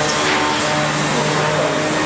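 CNC woodworking machining centre running with a steady hum and whir from its motors and dust extraction.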